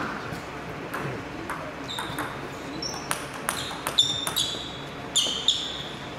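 Table tennis ball bouncing several times, an irregular run of short clicks, some ringing briefly at a high pitch, as the server readies to serve.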